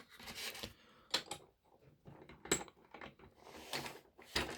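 Handling noises from the lock and tools: scattered light clicks and taps with some rustling, a sharper click about halfway through and a dull thump near the end.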